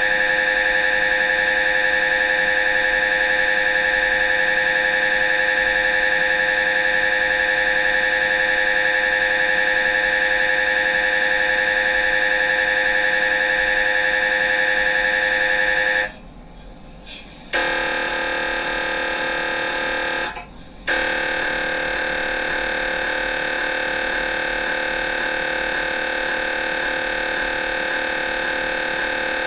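MRI scanner's gradient coils sounding a loud, steady buzz with many overtones while running a scan sequence. A little past halfway it cuts out for about a second and a half, then resumes with a changed tone and pauses once more briefly before continuing.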